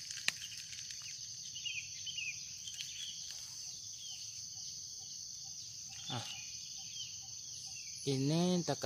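Steady high-pitched drone of insects, with a few faint bird chirps in the first seconds and a sharp click about a third of a second in. A brief voice is heard near the end.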